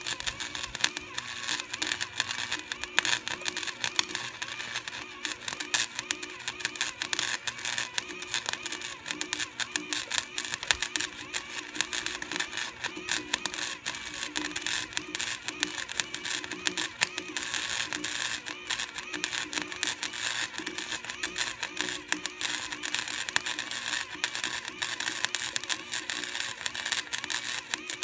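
Electric arc welder welding a lawn roller's drum: a continuous fast crackle with a steady hum underneath, the arc held without a break.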